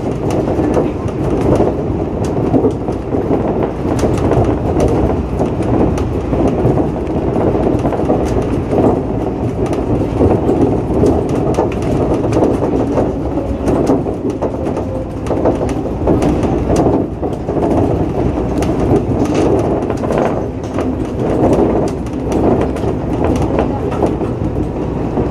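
Shonan Monorail 5000-series suspended monorail car running at speed, heard from the front of the car. Its rubber tyres and motors inside the overhead box-girder track make a steady running rumble, with occasional short clicks and knocks.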